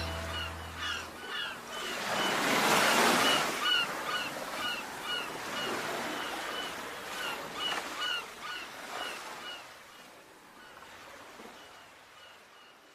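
Surf washing in, with one wave swelling about two seconds in, and a string of short, repeated bird calls over it, all fading out near the end. A low steady drone dies away in the first second.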